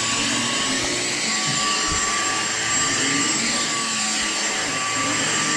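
Dyson vacuum cleaner running steadily while vacuuming a floor: an even rush of air with a steady high motor whine on top.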